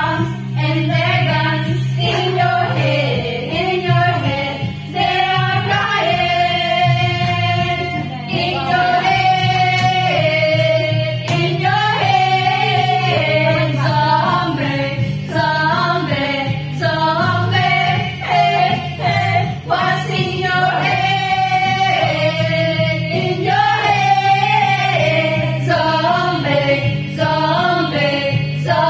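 Women singing a slow melody along to a karaoke backing track, one voice through a handheld microphone, over a steady accompaniment.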